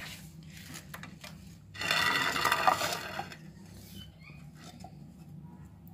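A non-stick frying pan and a silicone spatula being handled while a sponge cake is loosened from the pan. There is a sharp knock at the start, a scrape lasting about a second and a half near the middle, and a few light taps, over a steady low hum.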